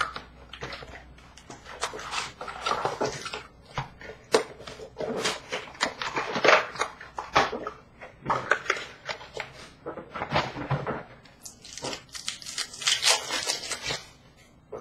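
Hockey card packs being torn open and the cards handled: irregular crinkling and rustling of foil wrappers, with sharp little snaps and slides of cards.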